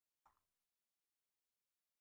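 Near silence, broken only by one very faint, short sound about a quarter of a second in.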